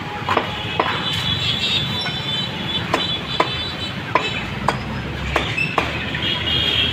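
Steel cleaver chopping raw chicken on a wooden chopping block: about ten sharp chops, with a pause between about one and three seconds in. Steady street traffic runs underneath, with a high squeal at times.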